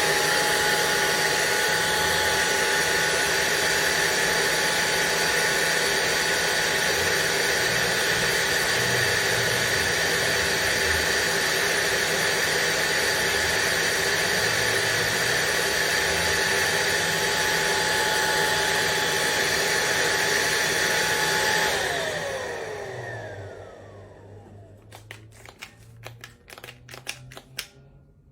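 Cordless stick vacuum cleaner's motor running with a steady high whine, then switched off about 22 seconds in, its whine falling as the motor winds down. A run of sharp clicks and taps follows near the end.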